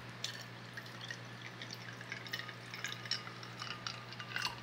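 Homemade lemon juice poured from a plastic pitcher into a tall glass of ice: liquid splashing, with many small scattered clicks of ice against the glass.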